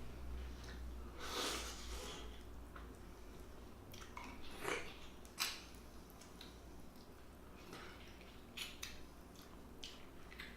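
A person eating up close: scattered wet chewing and mouth sounds with a few sharp clicks from handling food and utensils, over a low steady hum.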